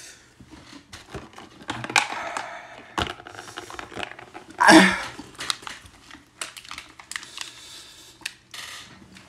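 A man breathing hard and sniffing against the heat of a super-hot chili nut, mixed with scattered clicks and rustling from handling things. There is one louder burst of breath about halfway through.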